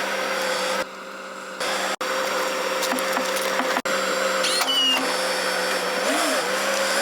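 Steady mechanical hum of a running motor with a constant whine. It drops to a quieter stretch about a second in and cuts out sharply twice, at about two and four seconds, like edit cuts.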